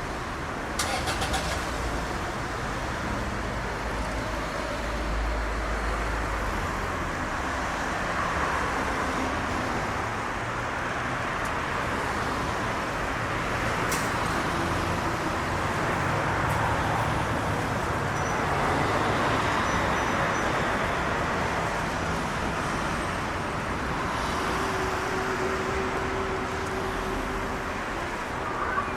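Steady rush of road traffic, with a short click about a second in and another about halfway through.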